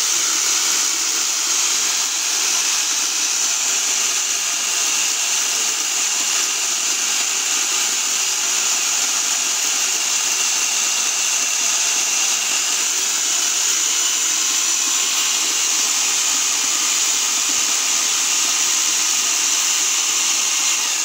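An RC car's electric motor and gear train running steadily at high speed, spinning a 12-volt DC motor as a generator, with a constant high whir. This is the self-charging setup under load, feeding a battery through a balance charger at about 3 to 4 amps.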